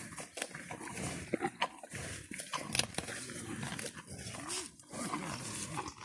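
Cows grazing right at the microphone, tearing grass and weeds and chewing them in a quick run of crisp rips and crunches. A short low pitched sound from a cow comes about four and a half seconds in.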